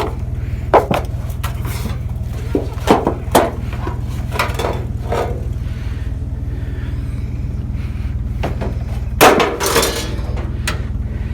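Junk being handled in a trash pile: scattered knocks and clanks as items are shifted and dropped. The loudest is a clattering crash about nine seconds in, over a steady low engine hum.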